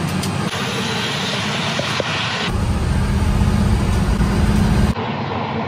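Tyre, road and wind noise inside the cabin of a 1970s muscle car converted to Tesla electric drive as it drives down the drag strip, with no engine note. The roar drops away abruptly near the end.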